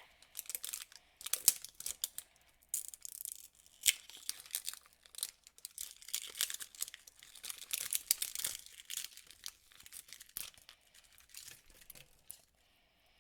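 The plastic tear-strip zipper of a Mini Brands capsule ball being pulled open: irregular tearing and crinkling of plastic with many small sharp clicks.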